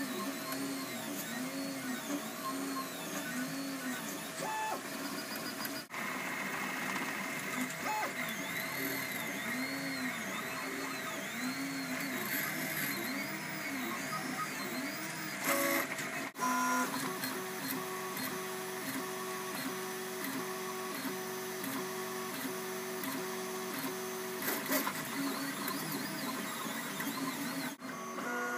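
FFF 3D printer running a print: its stepper motors whine in repeated rising-and-falling sweeps as the print head shuttles back and forth, over a steady hum. The pattern breaks off and changes abruptly a few times.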